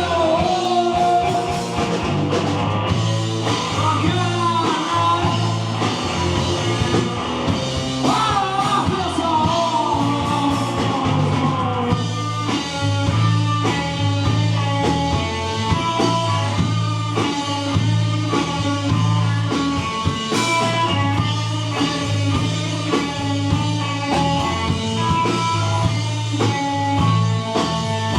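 Rock band playing live, with a loud, full mix of electric guitar over bass. For about the first twelve seconds a lead line bends up and down in pitch; from then on the band settles into a choppy, steady rhythm of repeated notes.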